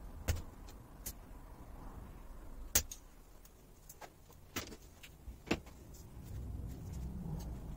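Metal clicks and clinks from a screwdriver and clips being worked on a car driveshaft's CV joint held in a vice, to take off the boot clips. A handful of sharp clicks over a low handling rumble, the loudest about three seconds in.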